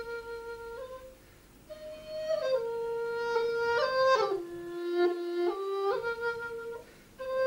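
Background music: a flute playing a slow melody of long held notes that step up and down, with a short break about a second in.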